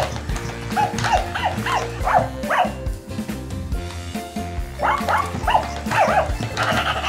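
Hasbro FurReal Friends Bouncy toy puppy playing its recorded barks: two runs of short, high yapping barks, about a second in and again about five seconds in, as it responds to being waved at and petted. Background music plays underneath.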